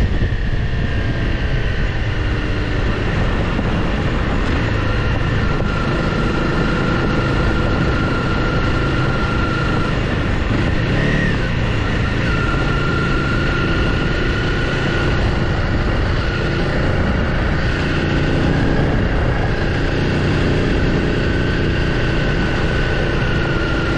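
Honda CRF300L Rally's single-cylinder engine running steadily while riding at an even pace, under a constant low rumble of wind and road noise.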